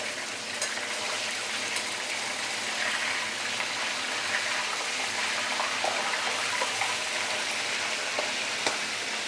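Whole black pomfret deep-frying in hot oil in a stainless steel wok: a steady sizzle with a few short sharp clicks.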